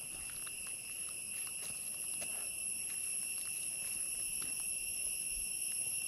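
Insects keeping up a steady, shrill drone: one high-pitched tone with higher overtones, unbroken throughout, with faint scattered ticks beneath it.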